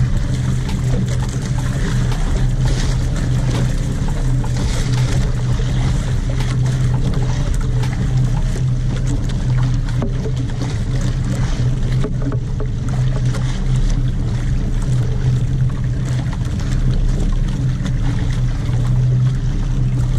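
Boat engine running steadily with a constant low hum.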